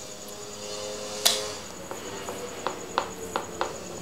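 Kitchen handling sounds while a raw beef steak is salted: a sharp clink of a spoon against a ceramic plate about a second in. Then a quick run of light taps as a hand works the salt into the meat.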